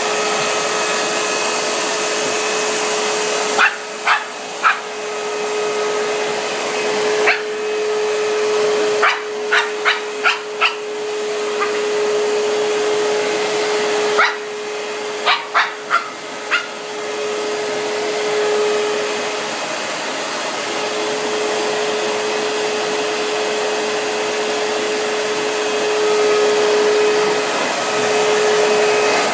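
Vacuum cleaner running with a steady whirring hum, while a Shih Tzu barks at it in three bursts of short, sharp barks between about four and seventeen seconds in.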